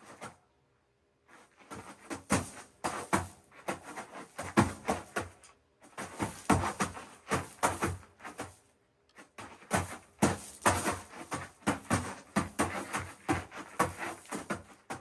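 Foley sound effects for a short fight scene: a dense run of footsteps, blows and weapon hits with cloth movement, broken by brief pauses about six and nine seconds in.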